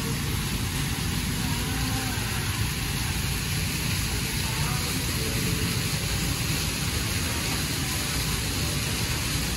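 Decorative water fountain jets splashing into their pool: a steady rushing hiss of falling water, with faint voices in the background.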